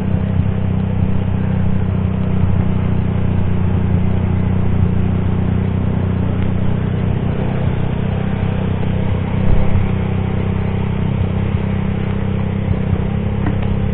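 Motorcycle engine running steadily at low revs on a wet road, under a constant hiss of heavy rain, wind and tyre spray.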